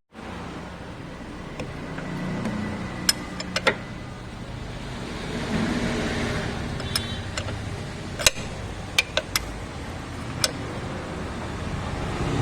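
Hand tools working on a car engine's belt drive: a handful of sharp metallic clicks and taps over a steady low rumble.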